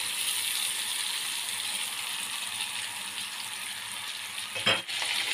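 Whole chicken browning in hot oil in an aluminium pot: a steady sizzle, with one short knock near the end.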